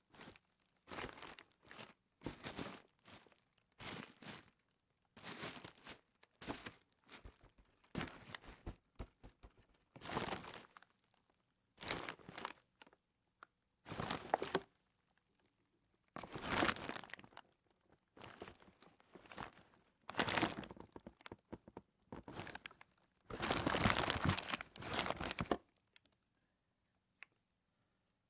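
Plastic trash being crumpled and crushed by hand in a series of crackling bursts, roughly one a second, some short and some drawn out; the handling stops a little before the end.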